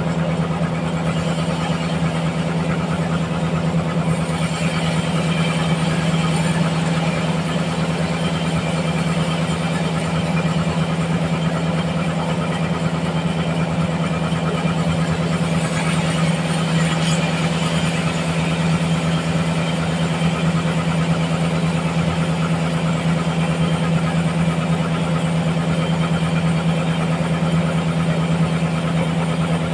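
Large band sawmill running with a steady, constant hum, its blade sawing through a huge trembesi (rain tree) log.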